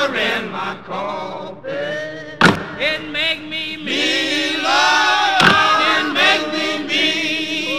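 A song with sung vocals held in long, wavering notes over music, with sharp percussive hits about two and a half and five and a half seconds in.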